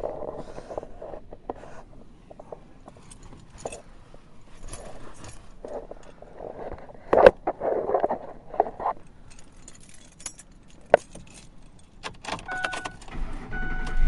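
Scattered clicks, knocks and rattles inside a truck cab, with two sharp knocks about seven and eleven seconds in. A steady beep starts near the end.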